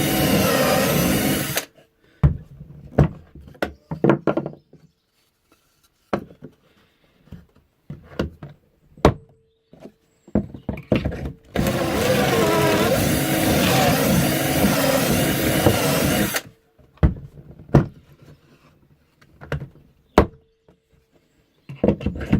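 Power drill boring pocket holes with a Kreg K4 pocket hole jig: a short drilling run, then a longer run of about four and a half seconds in the middle. Between and after the runs come separate knocks and clicks.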